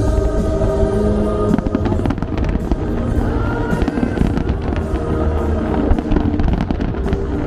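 Fireworks bursting and crackling in clusters over music that plays throughout, with the densest crackle about a second and a half in and again near the end.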